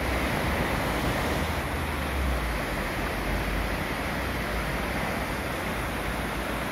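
Fast-running river churning through stone bridge arches and over a step into white water: a steady rushing noise with a low rumble beneath it.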